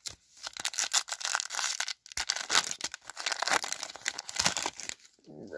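Foil wrapper of a 2010 Topps Update baseball card pack being torn open and crinkled by hand: a run of crackling rustles with a brief break about two seconds in.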